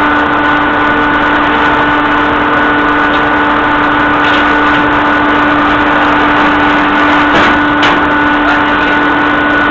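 Cotton baling press machinery running: a loud, steady machine hum with fixed tones, and a couple of short knocks late on.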